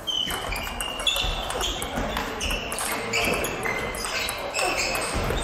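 Table tennis rally: the celluloid-type plastic ball clicking sharply off rackets and the table, several hits a second, with more ball clicks from rallies at neighbouring tables mixed in.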